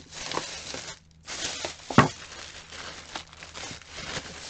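Clear plastic bags crinkling and rustling as they are rummaged through, with a sharp knock about two seconds in.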